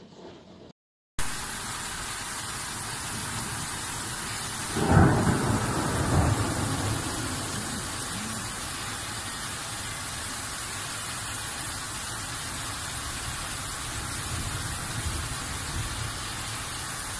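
Heavy rain pouring steadily, with a loud clap of thunder about five seconds in that rumbles on for a couple of seconds and fades. Weaker low rumbles come later.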